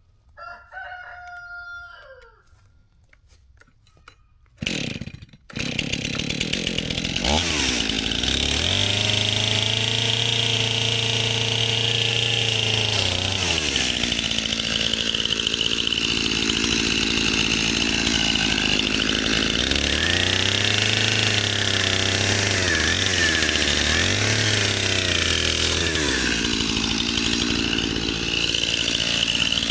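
A rooster crows once near the start. About five seconds in, a Stihl chainsaw starts and keeps running, revving up to full speed for several seconds at a time and dropping back to idle in between, as it cuts into the tree.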